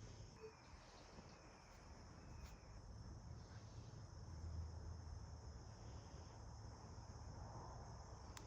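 Faint insect chorus, a steady high-pitched chirring, with a low rumble underneath.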